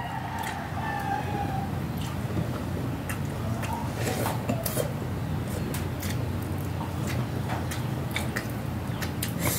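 Quiet eating by hand at a table: small clicks and taps of fingers, plates and food, over a steady low background hum. A faint falling drawn-out tone sounds in the first second and a half, and a weaker one about four seconds in.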